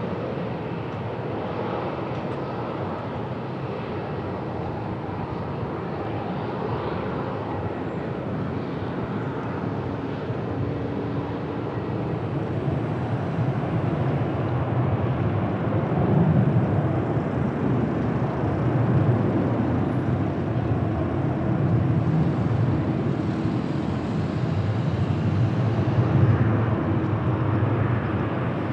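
Jet airliner engines at close range, a steady rumble that grows louder about halfway through.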